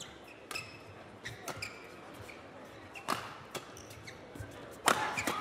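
Shoes squeaking and feet stepping on an indoor badminton court mat, with scattered sharp clicks and a louder sharp hit near the end.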